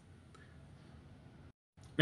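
Near silence: faint room tone, broken by a short dead-silent gap where the edit falls, with a man's voice starting right at the end.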